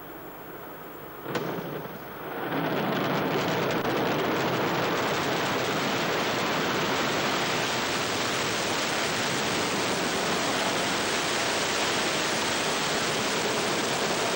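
Ariane 5 rocket at liftoff, its two solid rocket boosters and Vulcain main engine heard as a sudden loud burst about a second in. Within another second this gives way to a loud, steady, dense rushing noise that holds.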